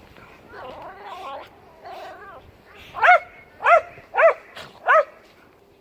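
Pet dogs vocalizing: softer wavering sounds, then four loud, sharp barks about half a second apart in the second half.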